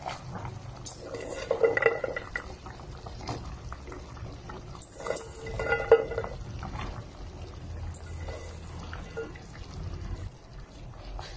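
Sinigang broth boiling in an aluminium pot as a handful of yardlong beans is dropped in, with two louder metallic clinks of the pot, about 2 and 6 seconds in.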